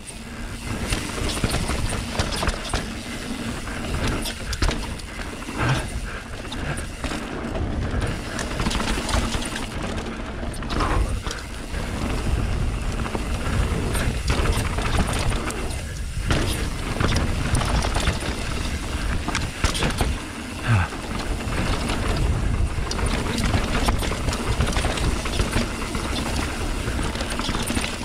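Mountain bike descending a rough dirt trail at speed: tyres rumbling and crunching over stones, with the frame and chain rattling and knocking over bumps throughout.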